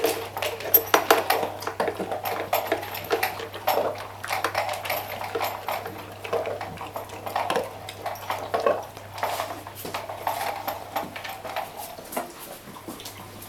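Dog eating out of a food bowl, wolfing down leftovers, its muzzle and tongue knocking the bowl in quick, irregular clatters that thin out near the end.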